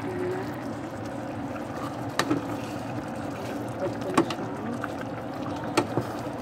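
Wooden spoon stirring simmering rice porridge in a stainless steel pot with a steady wet churning, and three sharp knocks of the spoon against the pot about two, four and six seconds in.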